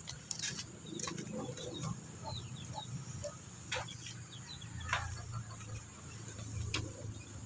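Outdoor background of birds chirping, short high calls scattered throughout, with a handful of sharp clicks and a low steady hum beneath.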